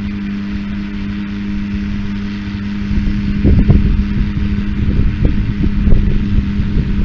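Farm tractor running a hay baler: a steady mechanical hum, joined about three seconds in by louder, irregular low rumbles and thumps.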